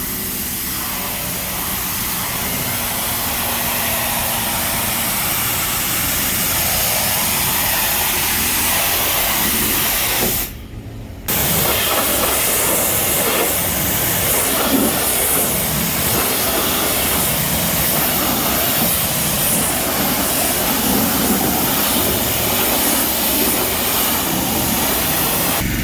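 High-pressure water jet from a pressure washer wand spraying wooden fence panels: a loud, steady hiss. It cuts out for under a second about ten seconds in, then resumes.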